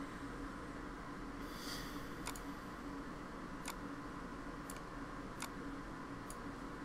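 About five faint, sharp computer mouse clicks, spaced irregularly, over a steady low hum and hiss of room tone. A brief soft hiss comes between about one and a half and two seconds in.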